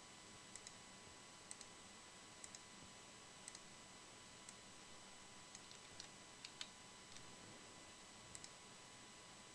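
Near silence with faint, scattered clicks of a computer mouse and keyboard, about a dozen, several in quick pairs.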